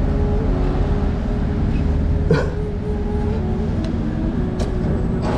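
Steady low rumble of road traffic with a faint sustained engine hum, and one sharp click about two seconds in.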